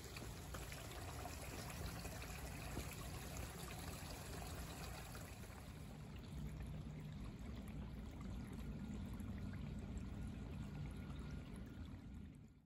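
A tiny woodland stream trickling over stones and fallen leaves, a steady, faint flow that fades out near the end.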